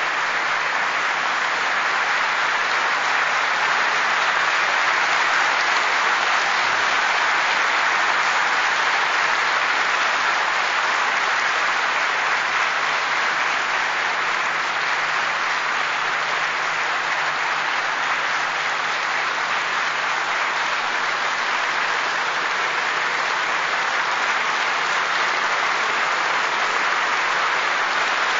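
Large audience applauding, steady and unbroken.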